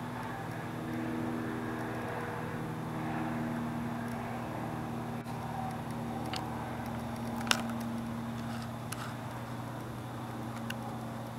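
Steady low machine hum, with a few light clicks over it; the sharpest click comes about seven and a half seconds in.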